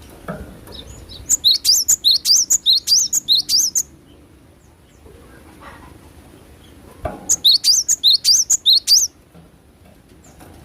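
Cinereous tit (gelatik batu) singing: two bouts of rapidly repeated high, rising-and-falling notes, about four a second, the second bout starting about seven seconds in.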